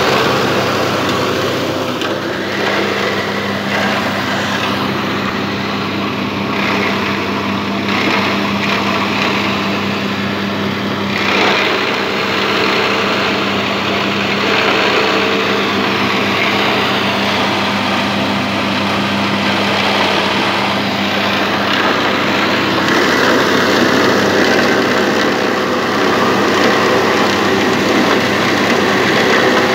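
Electric salça (pepper-paste) machine running: its geared motor hums steadily while red peppers are crushed into pulp, with a rough, shifting grinding noise over the hum.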